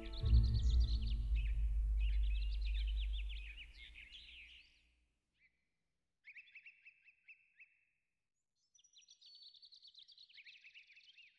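Songbirds singing in rapid, chirping phrases, over a low rumble that fades out about four seconds in; after a short pause the birds sing again in two shorter bursts.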